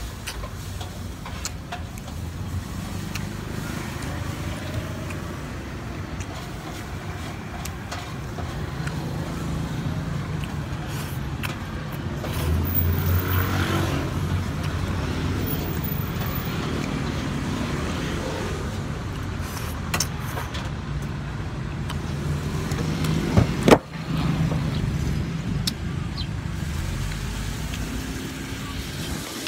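Road traffic passing: vehicle engines running in a steady low rumble, louder as one vehicle goes by around the middle, with a single sharp knock late on.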